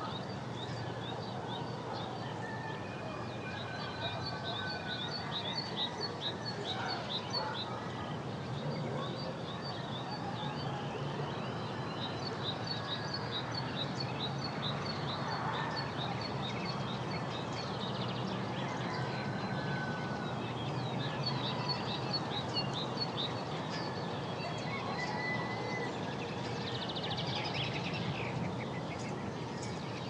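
Forest ambience: several birds chirping and singing in runs of quick, high repeated notes, with a few short whistles, over a steady background hiss.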